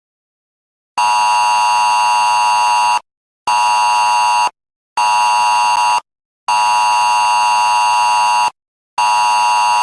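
Emergency Alert System–style attention tone for a tornado warning: a harsh buzzing two-tone alarm sounding in bursts, a long one, two short ones, then another long one and a short one.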